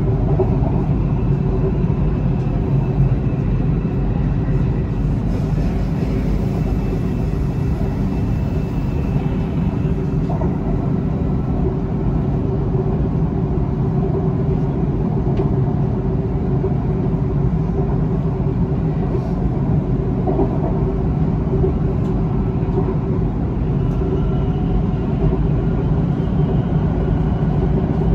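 Inside the car of a Siemens Inspiro metro train running at speed on an elevated track: a steady low rumble of wheels on rail with a steady mid-pitched hum. A faint high tone comes and goes.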